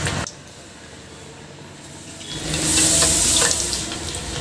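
Onion vadas deep-frying in hot oil: a hissing sizzle that drops low for about two seconds, then swells loud about halfway through. A few light clicks of a metal ladle against the aluminium pan come near the end.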